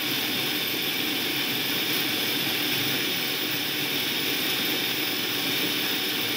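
Electric food processor running steadily, its blade whirring through a batter of eggs, banana and oats.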